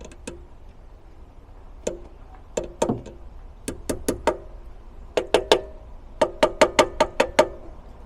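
Light metal taps on the old brass inlet spigot of a Weber carburettor, to loosen the push-fit spigot in its cast aluminium body. The taps come singly and in quick clusters, each with a short ring, with a fast run of about eight near the end.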